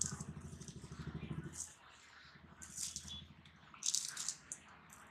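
Charred, oily skin of a fire-roasted brinjal crackling and rustling in short bursts as it is peeled off by hand, loudest about three and four seconds in. A low pulsing hum runs under the first second and a half, then stops.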